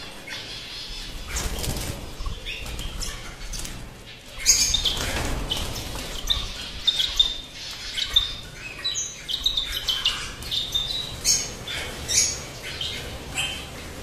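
Many small cage birds chirping and calling together, with wings fluttering as some fly about inside their cages. The short, high calls get louder and busier about four seconds in.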